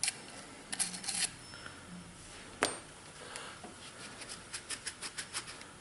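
Light clicks and taps of small hard objects being handled, with one sharper click about halfway and then a quick run of light clicks, about five a second, near the end.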